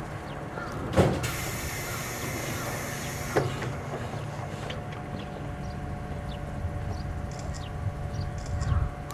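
A 711 series electric train standing at the platform, its equipment humming steadily. About a second in, a knock is followed by a two-second hiss of compressed air, and another knock comes a couple of seconds later.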